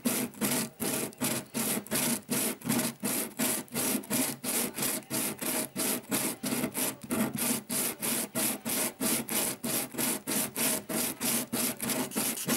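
Sandpaper laid flat, with a cast metal part and its hardened metal-repair putty rubbed across it in quick even strokes, about four a second. The part's mating face is being smoothed flat.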